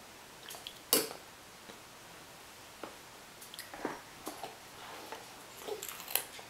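Scattered clicks and taps of toddlers eating at plastic high-chair trays. A sharp knock comes about a second in, then lighter clicks in small clusters.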